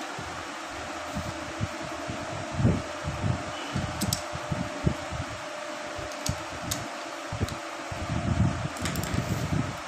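Steady electric fan running with a faint hum, under irregular low thumps that grow heavier near the end. A few light metal clicks come from a motorcycle carburettor being handled and put back together.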